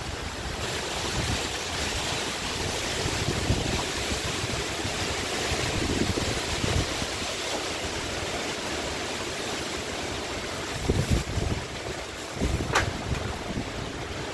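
Storm wind rushing through trees with steady rain, a continuous hiss, while gusts buffet the microphone in low rumbles. A brief sharp click near the end.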